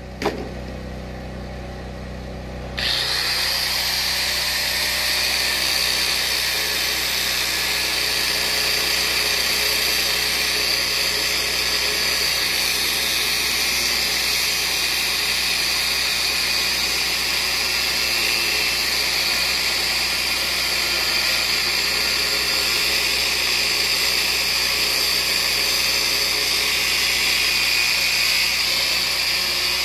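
Angle grinder with a cutting disc cutting through a metal plate, starting with a jump in level about three seconds in and then running steadily with a high whine.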